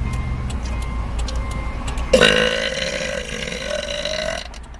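A woman's single long burp, starting abruptly about two seconds in and lasting a little over two seconds, its pitch sagging and then rising slightly before it cuts off.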